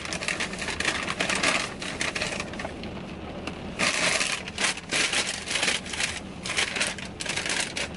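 Paper takeout bag rustling and crinkling in irregular bursts as a hand rummages in it and pulls out wrapped food.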